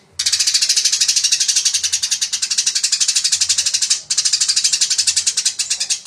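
Eurasian tree sparrow (greja) giving its fast, dense fighting chirp: a rapid unbroken run of high chirps, about eight or more a second, with a brief break about four seconds in.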